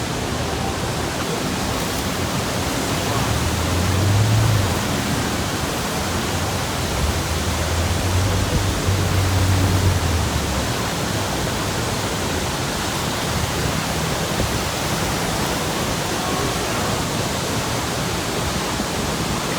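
Steady roar of the Iguazu Falls, an even rushing noise of heavy falling water. For several seconds around the middle a low rumble sits under it.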